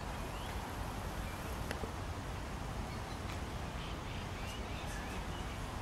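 Small birds chirping now and then over a steady low rumble, with a couple of faint clicks.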